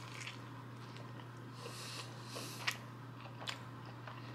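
A person chewing a fried chicken tender with the mouth closed, with a few soft mouth clicks, over a steady low hum.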